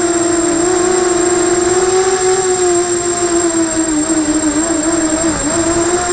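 FPV250 quadcopter's brushless motors whining in flight, the pitch wavering and dipping with throttle changes about four to five and a half seconds in, over a rushing noise and a constant thin high-pitched tone.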